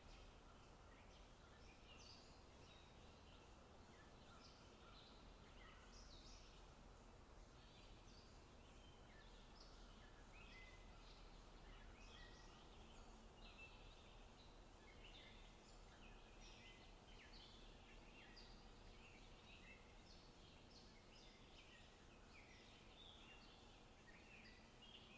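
Faint forest birdsong: several birds chirping and trilling continuously, over a low, steady background hiss.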